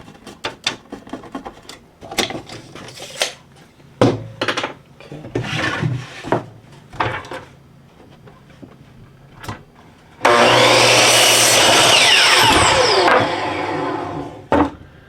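Clicks and scrapes of cedar fence boards being handled and marked. About ten seconds in, a power saw starts and cuts the board for roughly four and a half seconds, easing off slightly partway through before it stops.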